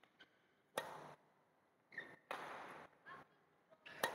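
Badminton rackets striking a shuttlecock in a rally, a few separate hits with a very sharp crack near the end.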